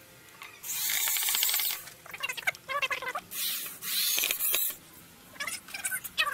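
Electric drill run in several short bursts of about a second each, its motor whine rising and falling as it spins up and stops.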